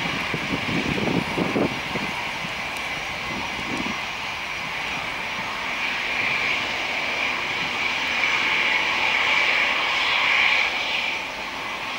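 Boeing 737-800's CFM56-7B turbofan engines at takeoff thrust during the takeoff roll: a steady jet roar with a strong whining hiss. There is uneven low rumbling in the first few seconds, and the sound grows louder as the jet accelerates and lifts off, then drops off near the end.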